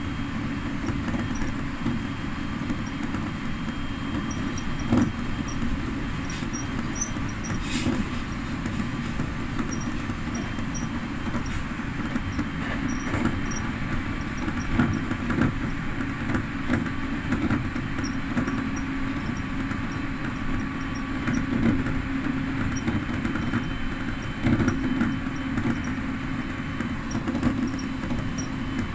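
Electric train running along the line, heard from inside the driver's cab: a steady running noise with a low steady hum and a few short knocks.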